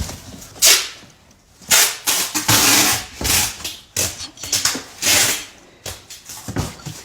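Tape being pulled off a roll in several ripping strips, each a burst of harsh noise lasting under a second.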